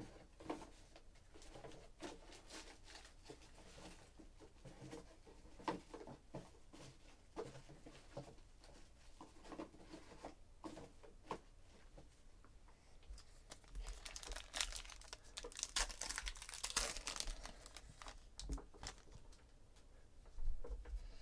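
Soft handling clicks and rustles, then past the middle a few seconds of crinkling and tearing as the gold paper wrapper of a 2017 Panini Gold Standard football pack is ripped open.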